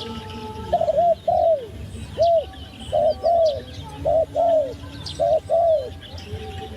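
Dove cooing: a series of about ten rounded, arching coos, mostly in pairs, starting about a second in and stopping near the end, with faint high chirps of other small birds behind.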